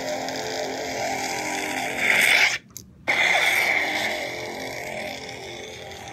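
Custom unstable lightsaber sound font played through a Crystal Focus 8 saber board's speaker in the hilt: a fluctuating, whining hum. About two seconds in it swells loud, cuts out almost completely for a split second, then comes back loud and settles into the hum again.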